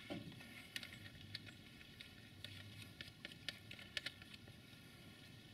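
Faint, irregular metallic clicks and scrapes of a battery cable lug being fitted onto a lead-acid battery's terminal post and its nut put on and turned with a wrench, with a couple of sharper clicks about four seconds in.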